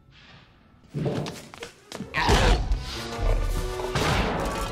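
Tense orchestral film score bursts in loudly about a second in. A heavy thud follows about a second later, as a velociraptor jumps up onto a steel kitchen counter.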